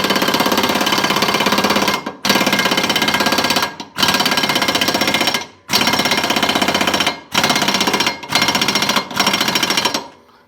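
Impact wrench hammering in a series of seven bursts, each one to two seconds long with short pauses between: tightening the bolt that holds a freshly sharpened mower blade on the deck.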